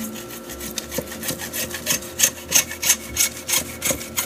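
Hacksaw cutting through plastic PVC pipe by hand, a steady back-and-forth of about three strokes a second that grows louder as the cut gets going.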